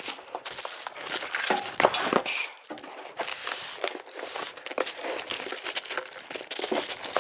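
Thick cardboard packing crinkling and rustling in irregular crackles and scrapes as hands try to work under a heavy router table top and lift it from its box.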